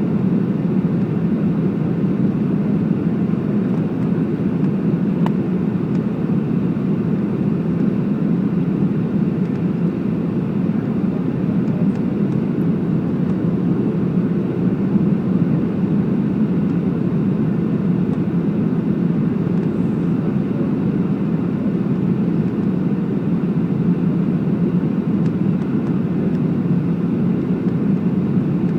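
Steady cabin noise of a Boeing 757-200 heard from a window seat over the wing: an even, low rushing hum of engines and airflow with no surges or sudden changes.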